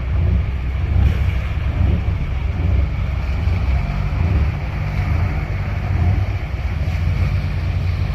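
Steady low rumble of a boat engine idling, with wind buffeting the microphone.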